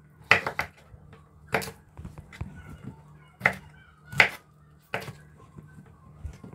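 Chef's knife cutting oyster mushrooms on a wooden cutting board: about six sharp, irregular knocks as the blade strikes the board.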